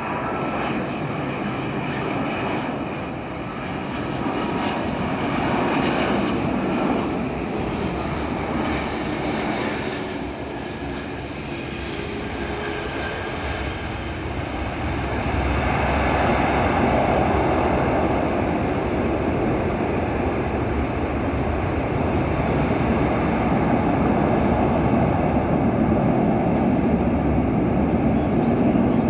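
Airbus A330-300's twin Rolls-Royce Trent 700 jet engines as the airliner descends on final approach, lands and rolls out along the runway: a continuous jet rumble that grows louder about halfway through.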